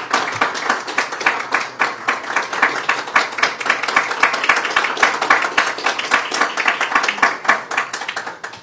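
A small group of people applauding, a dense patter of hand claps that thins out and stops near the end.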